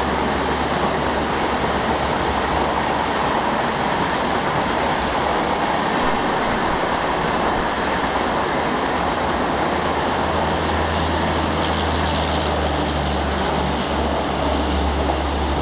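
Coaches of an AC superfast express train running past on the track: a steady, loud rush of wheel-and-rail noise, with a low hum joining about ten seconds in.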